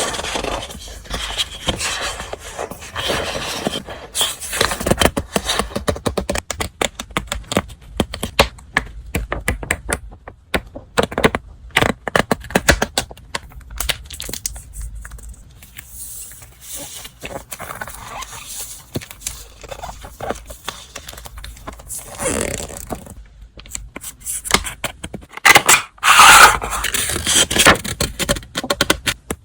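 Paper and stationery items being handled: rustling, scraping and light taps, with louder rustling a little past two-thirds of the way in and near the end.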